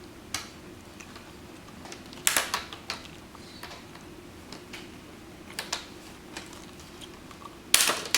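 Plastic screen bezel of a laptop being pried off by hand: its clips snap loose in sharp plastic clicks and cracks, in a few short clusters, the loudest near the end.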